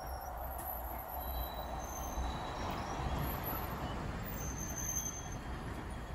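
Passenger train cars rolling slowly past on jointed track, a steady rumble of wheels on rail, with a few brief, faint high-pitched wheel squeals.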